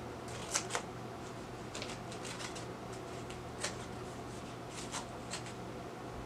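A small package being cut open by hand: scattered crinkles of the wrapping and a few sharp snips, the loudest two close together just over half a second in.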